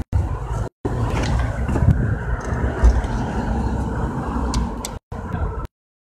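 Street traffic noise, cars going by, as a steady rumble. The sound drops out to dead silence briefly twice near the start, again at about five seconds, and for good shortly before the end.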